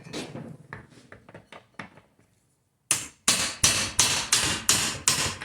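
Hammer striking a sewing chair's caster wheel to knock it apart: a few light taps and knocks, then about seven hard blows at roughly three a second in the second half.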